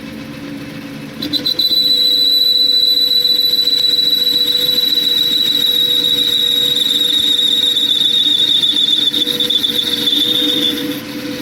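Metal lathe running with a steady motor hum while the cutting tool squeals against the steel bolt blank: a loud, high, steady squeal starts about a second in, its pitch sagging slightly, and stops near the end.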